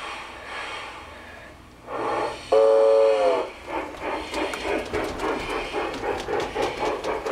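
LGB G-scale steam locomotive's onboard sound unit: a steam hiss, then about two and a half seconds in a steam whistle blast of about a second, the loudest sound, which sags in pitch as it ends. Steady rhythmic chuffing follows, a few chuffs a second, as the locomotive runs; here the sound unit is working properly.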